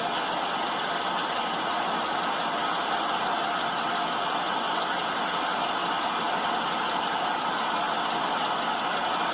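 Steady engine and road noise of a police patrol car idling at the roadside, picked up by a body camera's microphone.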